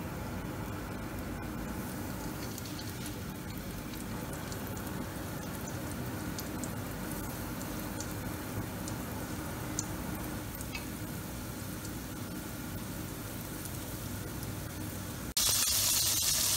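Flour-coated chicken pieces deep-frying in a pot of hot oil, the oil sizzling steadily with a few small ticks. About fifteen seconds in it jumps to a pot crowded with frying chicken, the sizzling much louder and brighter.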